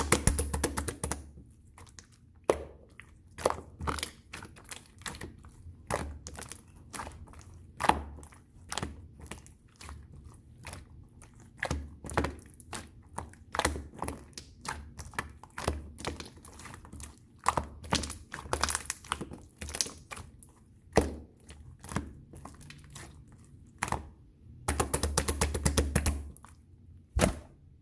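Pearl slime being squished, pressed and stretched by hand: irregular sticky clicks and pops over soft low thuds, coming in bursts, with dense runs of crackling about a second in, around two-thirds of the way through and near the end.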